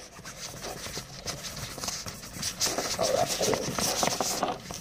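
A wet, soapy cotton swab scrubbing the fabric lining of a pencil case, with quick irregular rubbing strokes and small knocks. The rubbing grows louder in the second half.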